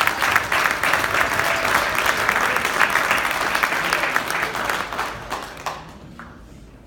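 Audience applauding: dense clapping that tails off and dies away about six seconds in.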